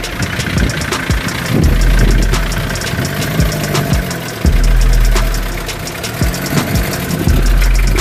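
Engines of off-road 4x4s running at low speed on a dirt track, with a Land Rover Defender crawling past close by. A deep low rumble swells and fades in surges every two to three seconds, with scattered sharp knocks.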